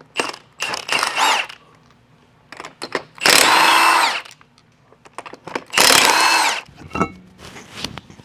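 Cordless impact wrench spinning lug nuts off a steel wheel, in four runs: two short ones near the start, then two longer, louder ones about three and six seconds in.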